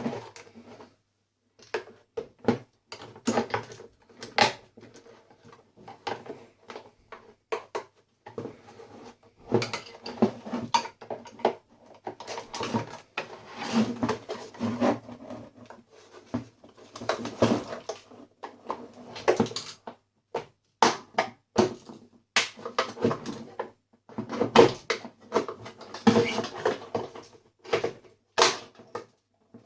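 Plastic and metal parts of a coffee maker clattering, knocking and scraping as it is taken apart, in irregular clicks, rattles and short scrapes.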